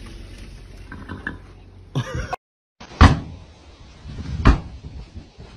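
Two heavy impacts about a second and a half apart: a boot kicking against a wooden door to break it in. The first is the louder.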